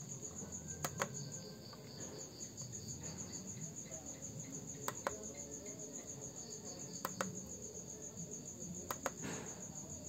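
Crickets chirping in a steady rapid pulse, with four pairs of sharp clicks scattered through it, the buttons of a ProChrono chronograph being pressed to step through the recorded shots.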